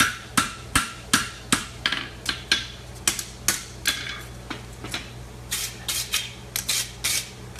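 Farrier's hammer striking an aluminum horseshoe held over the anvil horn: a run of sharp blows about two to three a second, some with a short metallic ring, lighter for a moment mid-way, then harder again.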